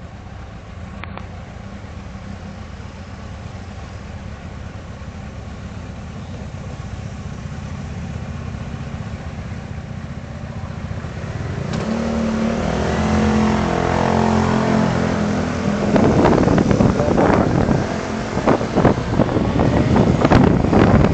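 Motorcycle engine running low and steady, then pulling harder with a clearer engine note about twelve seconds in. From about sixteen seconds, wind buffets the dashcam microphone more and more as speed builds.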